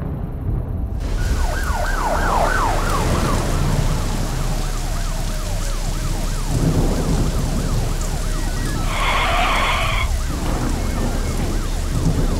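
Rain falling steadily with a police siren wailing in a fast, repeated rise and fall, joined by thunder, with a louder burst about nine seconds in. The rain and siren start about a second in.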